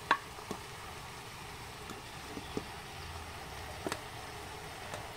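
Seared beef chunks sliding out of a metal pan into a metal pot, with a few scattered clicks and clinks of metal against metal, the sharpest just after the start and two close together about four seconds in, over a faint steady hiss.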